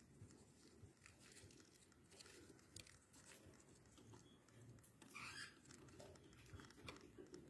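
Faint crackling and light tapping of a rainbow lorikeet chick working its way out of the eggshell, with one short high squeak about five seconds in.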